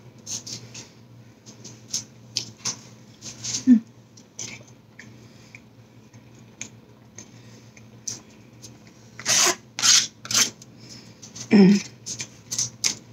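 Close-miked eating sounds: a plastic fork scraping and stabbing at chili cheese tater tots in a paper tray, with chewing and wet mouth smacks. A few sharper noisy clicks come around two-thirds of the way in, and there are two brief low hums.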